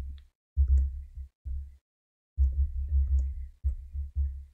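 Computer keyboard typing, heard mostly as dull low thumps with faint clicks in irregular runs, pausing briefly near the middle.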